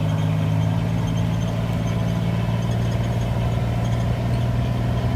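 A vehicle's engine running steadily at an even speed: a constant low hum that holds one pitch throughout.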